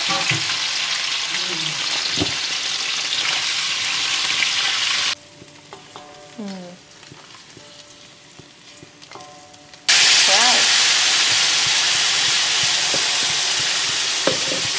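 Salted fish frying in hot oil, sizzling loudly. The sizzling cuts off suddenly about five seconds in and comes back just as suddenly some five seconds later.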